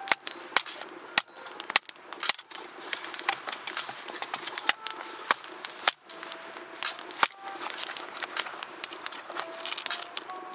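Newly lit wood campfire crackling, with sharp irregular pops and snaps.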